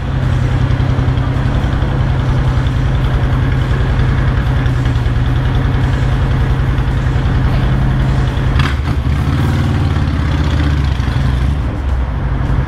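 Honda Shadow 750 V-twin running loud through its new modified fishtail-tip exhaust, a steady pulsing rumble. About nine seconds in the engine note drops lower for a few seconds, then comes back up.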